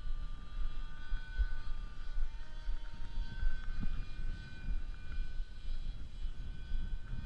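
Sky Surfer RC plane's electric motor and propeller whining in flight, the pitch shifting a little as the throttle changes, over a low rumble of wind on the microphone.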